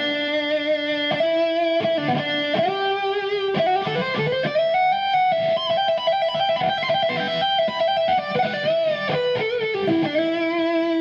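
Kiesel Osiris electric guitar with beryllium pickups, both pickups selected, played through a Kemper profiler's high-gain Plexi lead profile with a little delay. It plays sustained single-note lead lines with string bends and vibrato.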